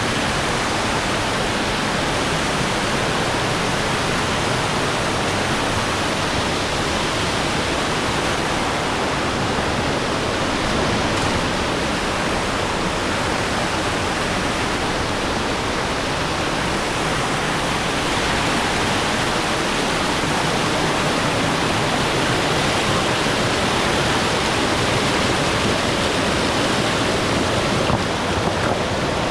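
Loud, steady rush of fast-flowing river water, an even roar with no pauses.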